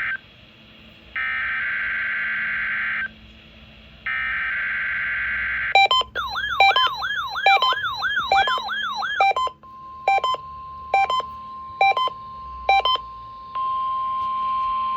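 NOAA Weather Radio weekly test alert tones. First come the digital SAME header bursts, screechy data tones about two seconds long with a second's pause between them. The end of one burst is heard as it opens, then two full bursts. About six seconds in, warbling alarm chirps and sharp beeps follow, then a steady tone near 1 kHz with beeps about every 0.8 s.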